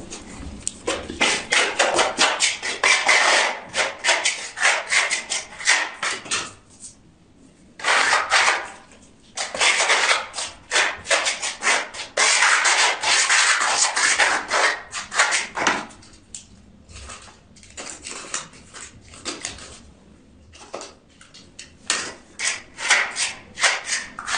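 Fast, repeated scraping strokes of a hand tool on a hard surface, several a second, in quick runs broken by short pauses.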